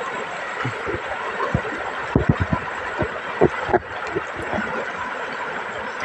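Shallow river running over rocks in rapids: a steady rushing hiss of water, with scattered short low thumps.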